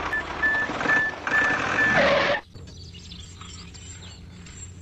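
Tractor engine running with a high beeping about twice a second, like a reversing alarm. It cuts off suddenly about halfway through, leaving only a faint low hum.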